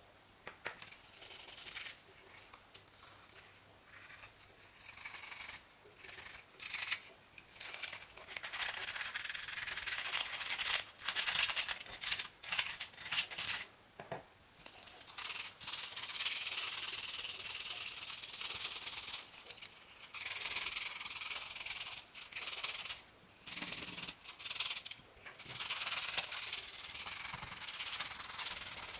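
Hand sanding of a bare die-cast metal model truck body with abrasive paper: rapid rasping strokes in runs of a few seconds with short pauses between, fainter in the first few seconds.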